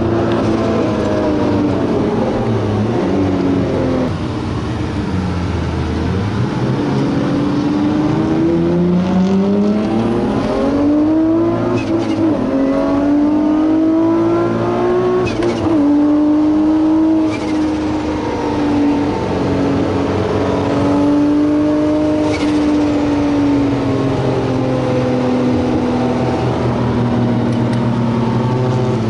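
Nissan Skyline R34 GT-R's 3.2-litre RB straight-six heard from inside the cabin, its pitch falling and then climbing through the revs in two pulls with short sharp breaks at the gear changes. It then settles into a steady drone at cruise.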